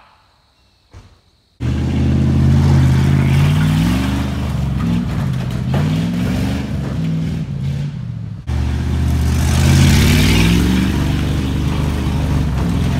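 1984 Dodge Ram pickup's engine revving up and down as the truck drives through mud. It starts abruptly about a second and a half in and briefly drops out about eight and a half seconds in before carrying on.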